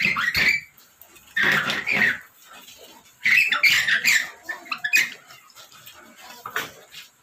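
Hand spline roller pressing rubber spline into the channel of a window screen frame to lock the screen mesh, in short strokes, about five in all, each under a second long.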